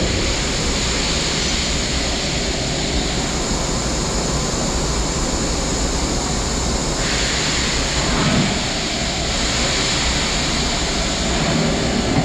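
Mori Seiki NT5400 CNC multitasking turning center running: a steady rushing hiss over a low machine hum. The hiss starts abruptly and thins a little about seven seconds in.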